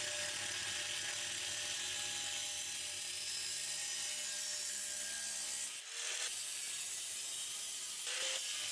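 Angle grinder with a thin cut-off disc slicing through a metal exhaust pipe: a steady hiss of the disc biting the pipe, with a brief break about six seconds in.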